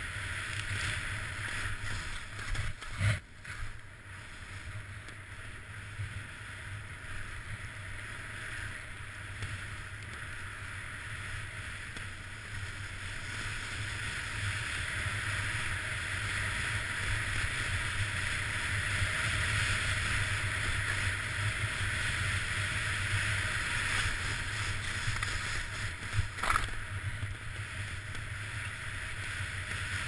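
Skis sliding and hissing over fresh, loose snow with a steady rush of moving air, growing somewhat louder partway through. Two brief knocks, about three seconds in and near the end.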